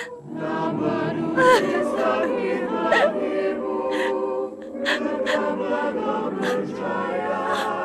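A choir singing a slow melody in the film's score, with several short sharp sounds cutting across it.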